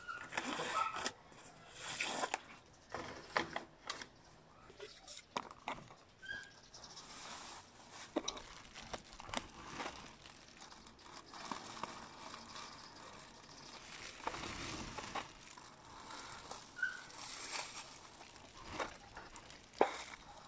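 Rustling and scattered clicks from movement close to the phone, with a few short, high chirps at wide intervals.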